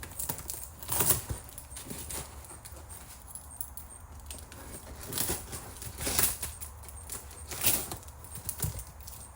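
A shipping package being opened by hand: packing material rustling and scraping in irregular bursts, the loudest about a second in and again around the middle and near the end.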